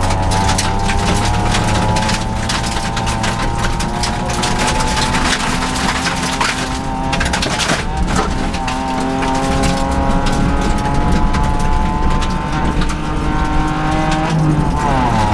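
Rally car engine heard from inside the cabin, held at high revs under hard acceleration; the note climbs steadily through the second half, then drops and climbs again quickly near the end as a gear is changed. Loose gravel ticks and rattles against the car's underside throughout.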